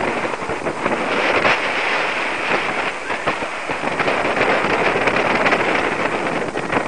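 Airflow of a paraglider in flight buffeting the microphone: a loud, steady rushing with frequent crackles.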